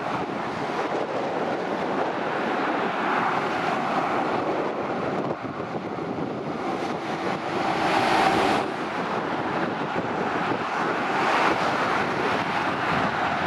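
Motorway traffic: heavy lorries and cars going past with a steady rush of tyre noise and diesel engines. It swells to its loudest about eight seconds in as lorries pass close.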